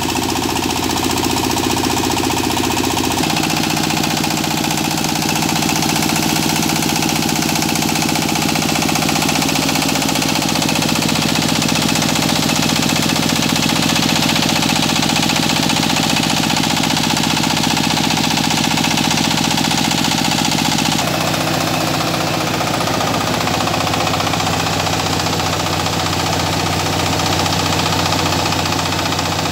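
Single-cylinder diesel engine of a two-wheel tractor running steadily under load, belt-driving a rice milling machine as paddy is fed through it.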